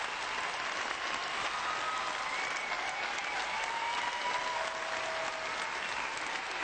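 Large arena audience applauding steadily, with some cheering rising over the clapping.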